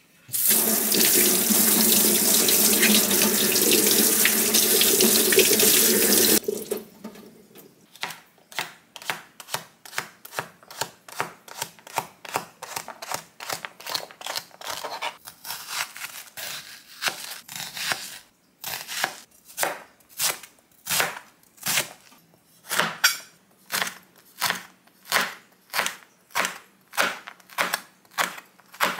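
Kitchen tap running into a sink for about six seconds, then shut off. This is followed by a steady run of sharp knocks, about two a second.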